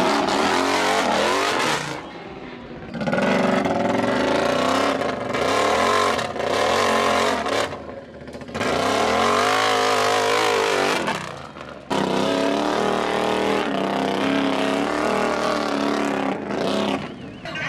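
ATV engine revving hard in repeated bursts, its pitch rising and falling, as the machine is driven under load over a rocky obstacle course and through mud.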